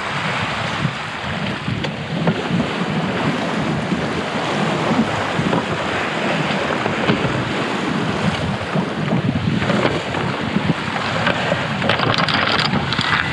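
Steady wind noise on the microphone with water rushing along a sailboat's hull under sail, a little brighter near the end.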